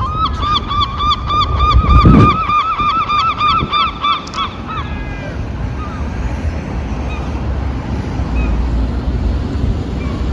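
A goose giving a fast, even run of honking calls, about six a second, that stops about five seconds in. A low rumble, such as wind on the microphone, rises around two seconds in.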